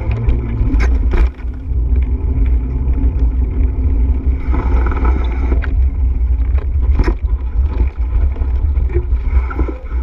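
Wind buffeting the microphone of a camera on a moving bicycle: a steady, loud low rumble with scattered knocks from bumps, a few of them in the first second or so and one about seven seconds in.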